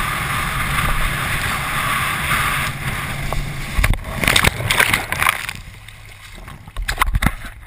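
Steady rush of wind and water past a wakeboard being towed across choppy water. About four seconds in it breaks into a run of heavy splashes as the rider falls into the water, then quieter sloshing and another burst of splashing near the end.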